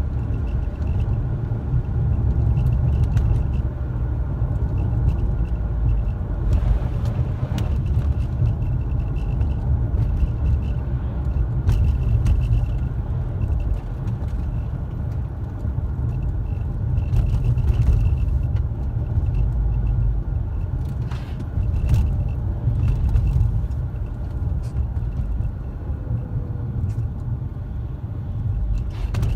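A car driving: a steady low rumble of engine and road noise, with a few short clicks and knocks scattered through it.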